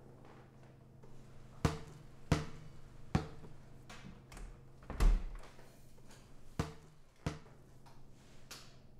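A handful of sharp knocks and clicks at uneven intervals, the loudest about five seconds in, over a faint steady low hum.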